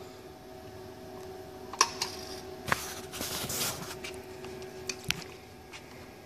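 A steady machine hum under a few sharp clicks and a short crackling rustle about three seconds in, from a plastic bottle being handled and knocked against the laser marker's metal worktable.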